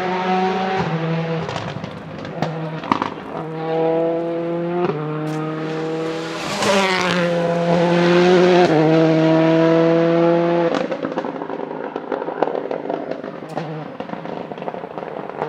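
Ford Focus WRC rally car's turbocharged four-cylinder engine driving under load, its note held level between several short breaks for gear changes. The pitch bends down about seven seconds in, as if the car is going by. After about eleven seconds the engine note fades into a run of sharp anti-lag pops and crackles.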